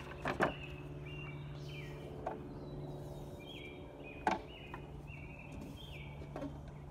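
A few sharp clicks and knocks, the loudest near the start and about four seconds in, as oar handles are sprayed with bleach from a hand pump sprayer. Behind them, a bird repeats a short call that steps down in pitch, over a steady low hum.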